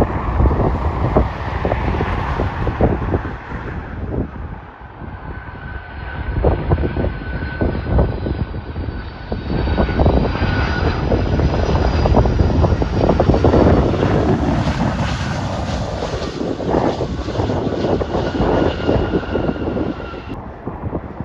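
Jet airliner passing overhead: a steady engine rumble with a high whine that drifts slightly lower, growing loudest around the middle. Wind buffets the microphone throughout.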